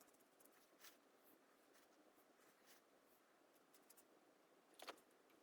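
Near silence: room tone with faint scattered clicks and scratches, one a little louder near the end.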